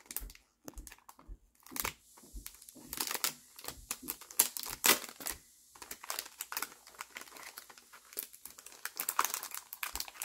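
Clear plastic wrapping around a Pokémon card mini binder crinkling as it is handled and pulled open by hand, in irregular crackles with several louder bursts.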